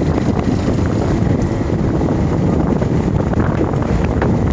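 Wind buffeting the microphone over the steady running of a fishing boat's engine, with a few light ticks.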